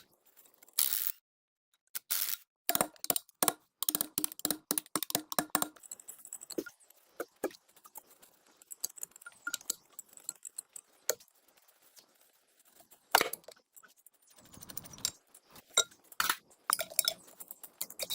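Metal parts and hand tools clinking and tapping in an irregular run of sharp clicks and light knocks.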